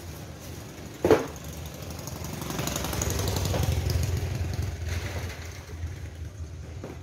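A sharp knock about a second in as a cardboard shoe box is handled, then a low pulsing engine rumble from passing traffic that swells for a few seconds and fades.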